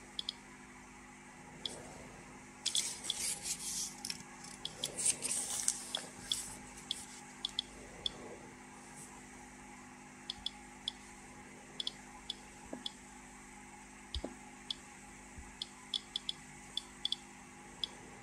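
A Geiger-counter dosimeter clicking irregularly, short high beeps at random intervals, about one a second, as it counts background radiation pulses. About three seconds in, old paper rustles for a few seconds as a manual page is handled.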